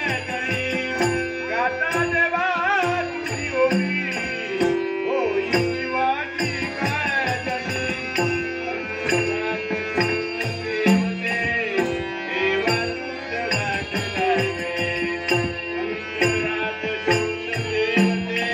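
Harmonium and a hand-played barrel drum (pakhawaj) playing fast live accompaniment for a stage battle, a short harmonium phrase repeating over a steady stream of quick drum strokes.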